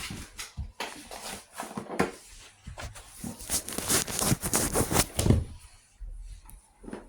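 Bluetick coonhound puppies playing on the floor: irregular scratching, rustling and tapping, busiest about three to five seconds in, then dying down.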